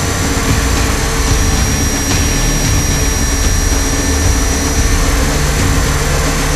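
Electric RC helicopter on T-REX 500 mechanics running steadily in flight. The brushless motor and gear train give a constant high whine over the rough rush of the rotors, heard from on board the scale Black Hawk fuselage.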